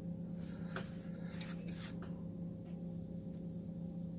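Faint rustling and a few light clicks of parts being handled over a steady low hum.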